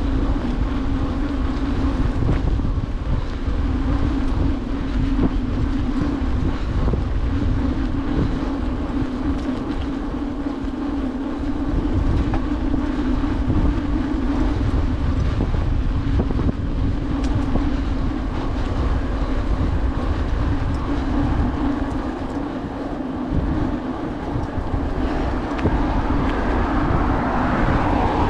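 Bicycle riding over paving: wind buffeting the handlebar-mounted microphone, with a steady hum from the tyres rolling on the pavement. A brighter hiss swells near the end.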